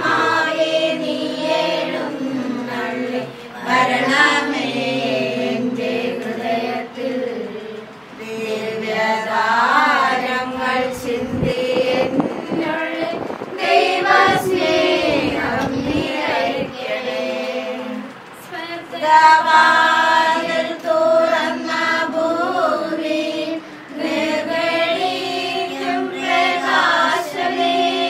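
Music: a choir with female voices singing a slow, held melody.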